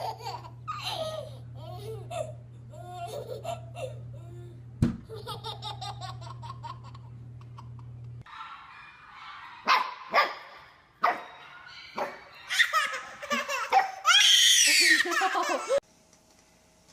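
A baby laughing and babbling, with the laughter coming in short peals and loudest near the end.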